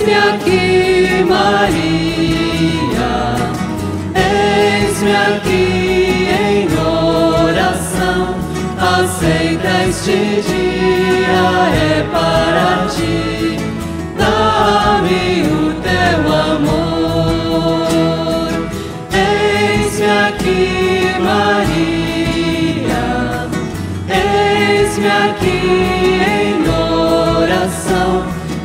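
A small mixed choir singing a Marian hymn, accompanied live by a flute, acoustic guitars and an electric bass.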